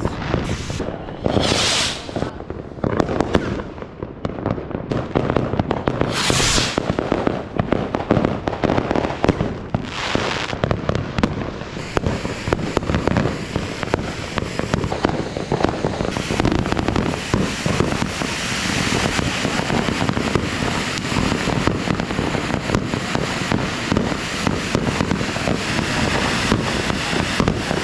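Fireworks rockets going off: a few separate hissing launches and bursts, then from about twelve seconds in a dense, continuous crackle and banging of many fireworks at once.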